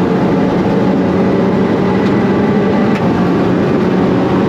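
Audi TT race car's engine heard from inside the stripped, caged cockpit, running loud at high, nearly steady revs under power.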